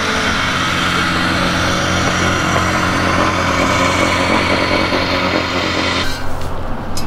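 An engine running steadily with a strong hiss over it. About six seconds in, the hiss cuts off suddenly.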